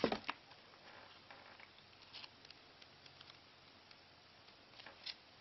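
Faint handling of the paper warranty card and manual: a few short rustles and taps, with a louder one at the start and a couple more near the end, scattered light ticks between.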